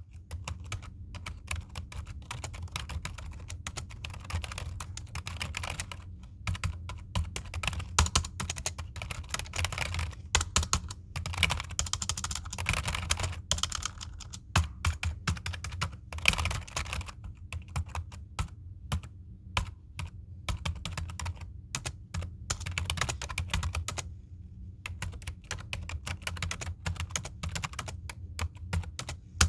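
Typing on a computer keyboard: rapid, uneven key clicks in bursts, with a brief pause about three-quarters of the way through, over a steady low hum.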